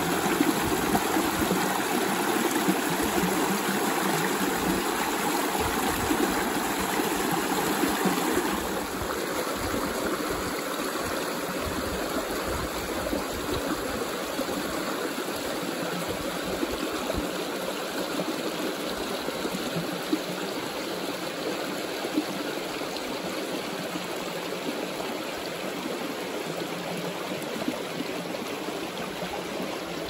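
Shallow stream rushing and splashing over rocks in a steady wash of water noise, becoming a little quieter about eight seconds in.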